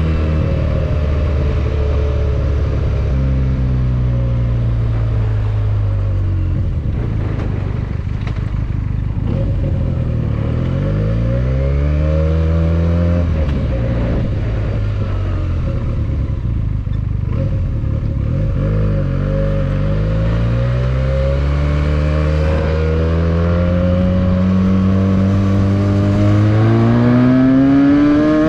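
Benelli 302S motorcycle's stock exhaust, its engine note rising under acceleration and dropping back several times as the bike pulls away, shifts and slows, then climbing steadily through the last several seconds.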